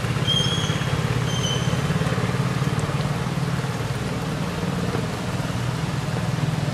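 Steady hiss of rain with a low droning rumble underneath, and two short high whistled calls about a second apart near the start.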